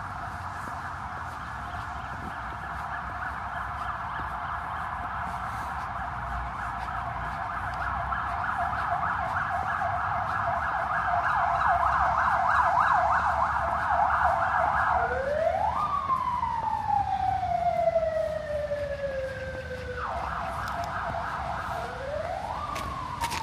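Emergency vehicle siren: a fast warbling yelp that grows louder over the first half, then switches about fifteen seconds in to long wails that rise quickly and fall slowly, twice, with a brief return of the warble between them.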